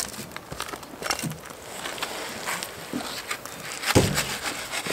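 A shovel blade jabbing and scraping, a few separate strikes with the loudest about four seconds in.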